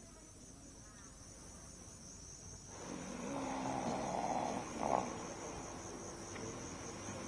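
A sleeping person snoring, a slow breath sound that swells and eases, starting about three seconds in. A few faint chirps sound about a second in.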